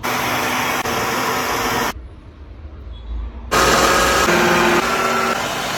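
Electric mixer grinder motor run in two short bursts: about two seconds, then a louder burst starting about three and a half seconds in, each starting and stopping abruptly.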